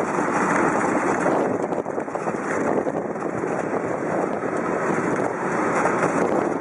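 Wind noise on the microphone of a Sony DSC-HX5 camera mounted on a moving bicycle: a steady rushing buffeting that covers the street sounds.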